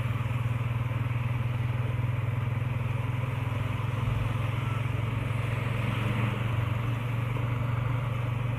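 Motorcycle ridden at a steady cruise: a steady low engine note under road and wind noise, heard from the rider's seat.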